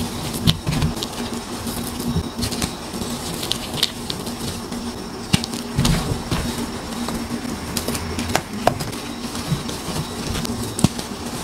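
Hands squeezing and crumbling dyed gym chalk powder and chunks: soft powdery crunching with many scattered sharp crackles.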